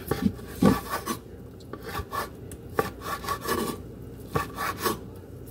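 A large kitchen knife slicing cooked chicken breast on a bamboo cutting board: irregular rasping strokes as the blade saws through the meat, with taps of the blade on the wood.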